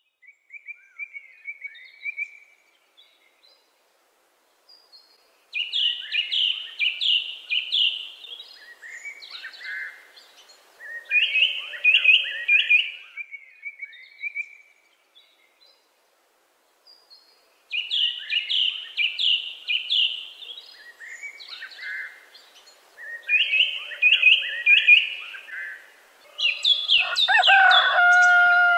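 Songbird singing in repeated phrases of quick chirps and trills, each a couple of seconds long with pauses between. Near the end a louder sound with held tones comes in.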